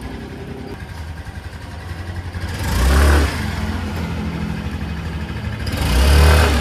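Yamaha Grand Filano scooter's single-cylinder 125 cc engine idling and revved twice, each rev climbing over a second or so to a peak about three seconds in and again about six seconds in, then dropping back to idle. The engine has been freshly refitted with new gaskets to cure an oil seep.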